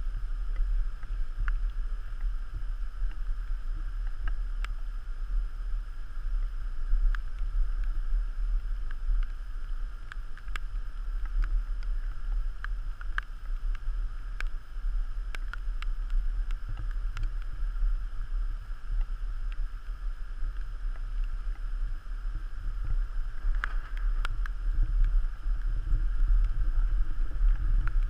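Steady low wind rumble on the camera microphone over the swish of water along the hull of a Hobie Tandem Island sailing kayak under way, with scattered light clicks.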